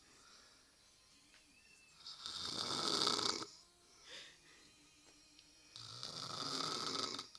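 An elderly woman snoring in her sleep: two long, loud snores, each about a second and a half, roughly four seconds apart.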